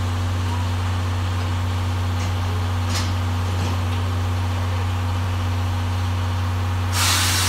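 C11 325 steam locomotive standing with a steady low hum. About seven seconds in, a loud hiss of escaping steam starts.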